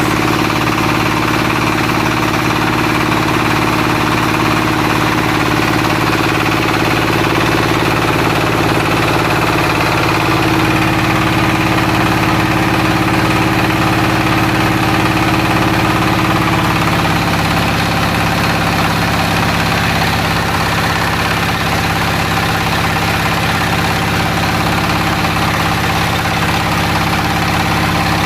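Floating fish-feed pellet extruder machine running steadily with a constant mechanical hum; its pitch shifts slightly partway through.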